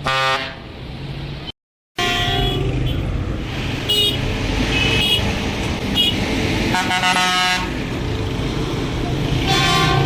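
Hino Bullet bus horns blowing, with several short toots and a few longer pitched blasts over the low running of a bus engine. The sound cuts out briefly about a second and a half in.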